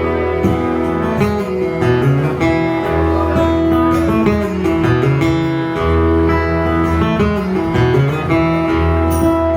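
Live country band playing the instrumental ending of a song: acoustic guitar strumming over sustained low notes that change every second or so, with no singing.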